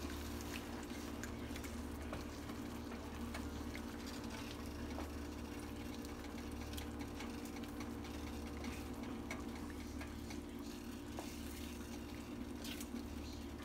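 Onion and mushroom gravy simmering in a skillet, with faint scattered pops and light strokes of a wooden spoon stirring it, over a steady low hum.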